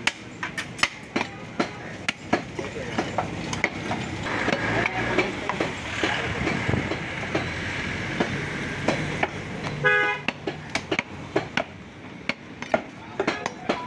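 Heavy butcher's cleaver knocking on a wooden log chopping block as beef is chopped: sharp irregular knocks, fewer in the middle. From about four to nine seconds a long steady horn toot sounds in the background, with a short beep about ten seconds in.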